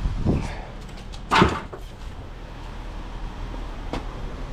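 Cut-up pieces of thin steel door skin being handled: a soft thump at the start, then one sharp clattering crash about a second and a half in that rings briefly, and a faint click near the end.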